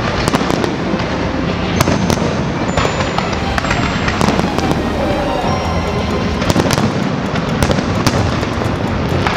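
Massed fireworks going off together: a dense, unbroken crackle of many shells and ground fountains, with sharp bangs scattered throughout.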